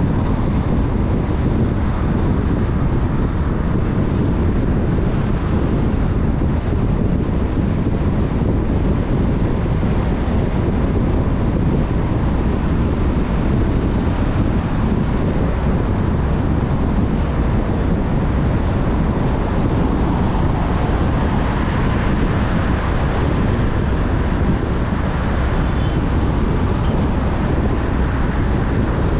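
Steady wind rushing over the microphone, mixed with the road and tyre noise of a vehicle travelling at speed.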